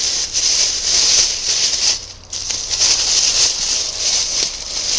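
Plastic shopping bag rustling and crinkling as a hand rummages through it and shifts its contents, with a short lull about two seconds in.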